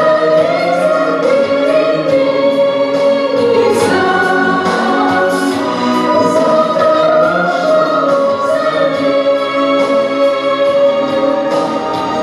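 Music with a choir singing long held notes over a steady beat.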